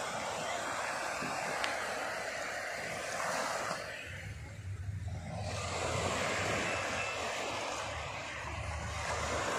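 Small waves washing in at the water's edge, a steady rushing hiss that drops away for a moment near the middle, with a low rumble underneath.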